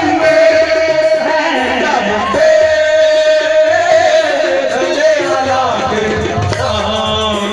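Qawwali singing: a voice holding long, wavering, ornamented notes over instrumental accompaniment with a low drum beat.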